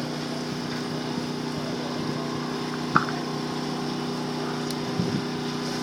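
An engine running steadily at a constant pitch, with a single sharp click about three seconds in.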